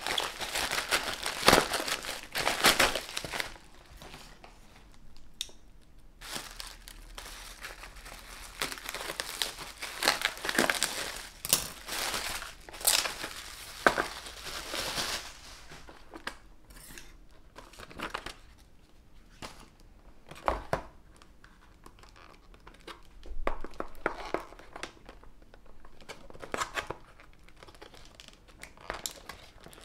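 Plastic packaging crinkling and rustling as a polythene mailer bag and bubble wrap are pulled off by hand. In the second half it turns to sparser crinkles and clicks as the clear plastic blister pack is handled.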